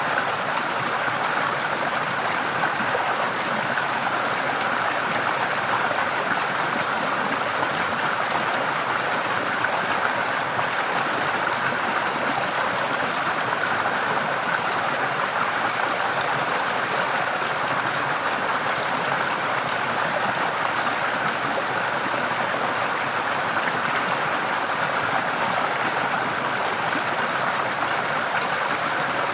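Forest stream flowing, a steady even rush of water with no change in level.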